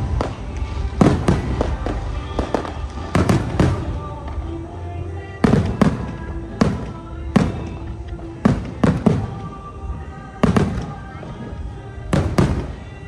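Aerial fireworks bursting in a string of sharp bangs, about one a second at uneven spacing, with music playing underneath.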